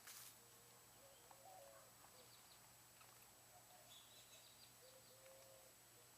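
Near silence with faint, scattered bird chirps and a brief soft hiss at the very start.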